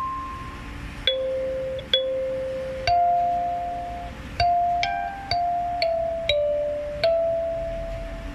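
Kalimba (thumb piano) played slowly, one plucked metal tine at a time, each note ringing out and fading before the next, a simple melody at a beginner's pace.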